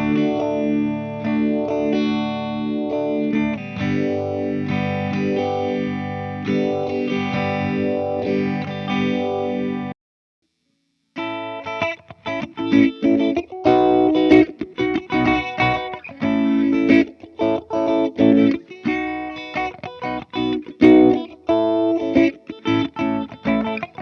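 Electric guitar (Epiphone Les Paul Special) through a Joyo Vintage Phase phaser pedal into a Fender Twin Reverb Tonemaster, recorded direct. For about ten seconds it rings out with sustained strummed chords. After about a second of silence, choppy funk-style rhythm playing with short chord stabs follows.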